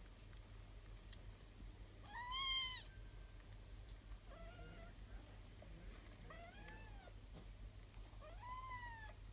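Kittens mewing as they jostle to nurse: four short, high-pitched mews about two seconds apart, each rising and falling in pitch, the first the loudest.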